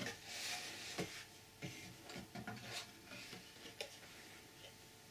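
Cardboard camera box and its bubble-wrapped contents being handled and shifted: faint rustling and scraping with a few light knocks, the sharpest about a second in and another near four seconds.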